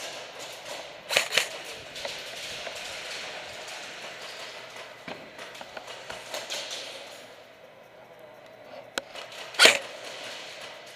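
Rustling movement sounds during an airsoft game, with sharp cracks or knocks: two close together about a second in, and a louder one near the end.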